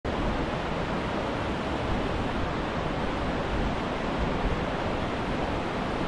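Fast mountain river rushing over boulders and rapids: a steady, even rush of water with no breaks.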